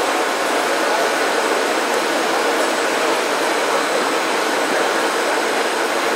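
Steady rushing noise of strong wind on the microphone mixed with helicopter engines running up for takeoff, drowning out everything else.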